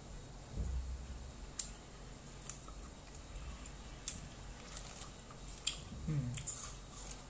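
Close-miked chewing of a chewy yogurt-flavoured gummy candy: a handful of sharp, sticky mouth clicks at uneven intervals, with a short hum from the eater about six seconds in.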